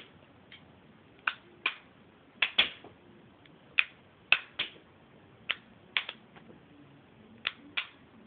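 Homemade semi-automatic BB gun being cycled and fired repeatedly: about a dozen sharp clicks, mostly in pairs a fraction of a second apart. The first click of each pair is the next BB popping up into the chamber, and the second is the shot.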